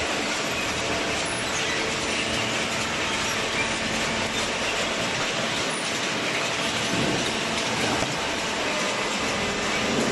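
Hydraulic cardboard baler running: a steady mechanical noise from the machine, with a few faint steady tones in it.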